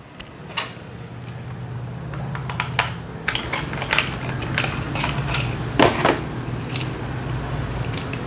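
Irregular sharp plastic clicks and rattles as a small toy RC helicopter with a metal frame is handled and pulled free of its plastic box tray, with a cluster of louder clicks about six seconds in. A low steady hum rises under it.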